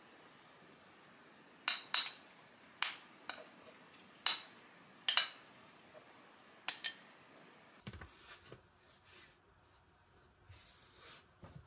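A metal spoon clinks sharply against a plastic mixing bowl while stirring flour and egg, about nine ringing clinks over five seconds. From about eight seconds in there are softer scrapes of a spatula working the flour mixture in the bowl.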